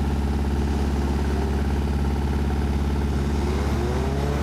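Willys jeep engine idling steadily, a low, even engine note with no revving.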